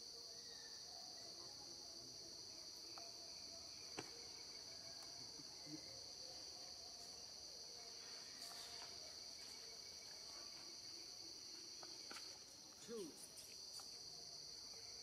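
Faint, steady chorus of insects: a continuous high-pitched buzz. It is broken only by a few faint ticks and a brief falling squeak near the end.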